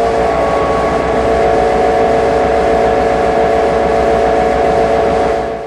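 Diesel locomotive engine running steadily, heard from inside the engine room: a low rumble with a steady whine on top.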